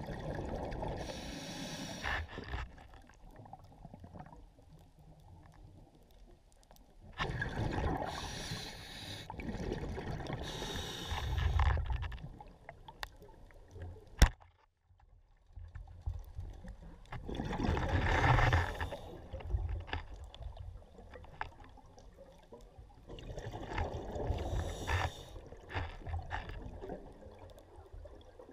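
A diver breathing underwater: bursts of bubbling exhalation come every five or six seconds, with quieter water noise between them. A single sharp click sounds about halfway through.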